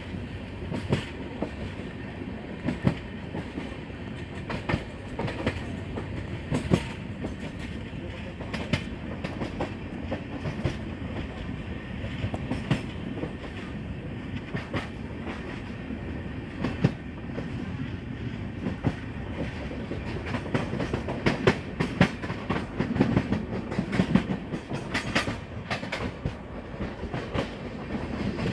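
Train running along the track, a steady rumble with wheels clicking over rail joints every second or two; the clicks come thicker near the end.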